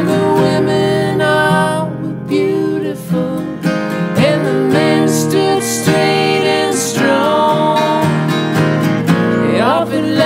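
Acoustic guitars playing an instrumental passage: a picked lead line with sliding, bending notes over strummed chords.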